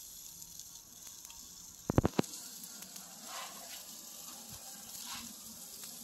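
Butterflied chickens sizzling on a grill grate, a steady high hiss. About two seconds in, a quick run of about four sharp knocks.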